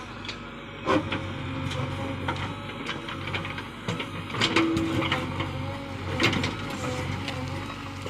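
Heavy machine engine running steadily under a clatter of sharp knocks, the loudest about a second in, around four and a half seconds in and just past six seconds.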